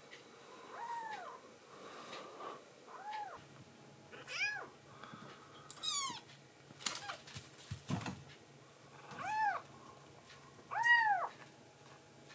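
A young black-and-white kitten mewing: about five short, high meows, each rising and then falling in pitch, spaced a second or more apart.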